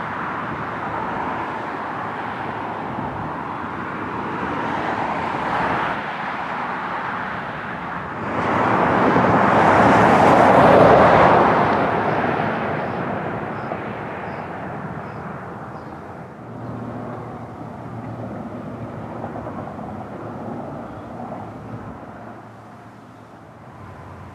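Outdoor ambient noise with a passing vehicle that swells to a peak about ten seconds in, then fades away.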